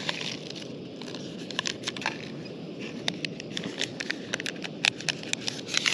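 Instant-coffee paper sachet being shaken, tapped and crinkled into a silicone collapsible cup: irregular light crackles and clicks, busiest about three to five seconds in, over a steady rushing hiss.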